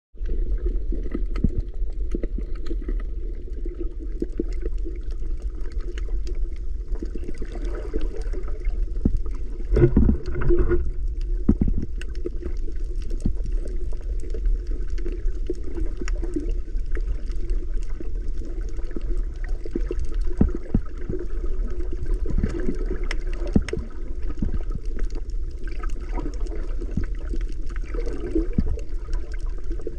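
Muffled underwater sound recorded through a camera housing: a steady low rumble with gurgling bursts of bubbles every several seconds, the loudest about ten seconds in, typical of a scuba diver's exhaled bubbles.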